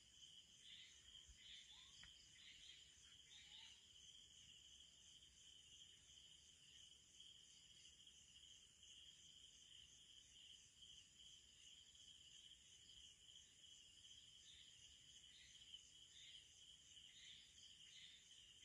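Faint night chorus of crickets and other insects: a steady high trill, with short pulsing chirps over it near the start and again near the end.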